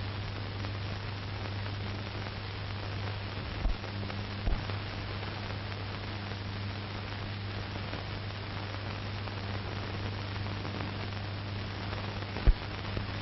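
Steady recording hiss with a low mains hum, broken by a few short pops.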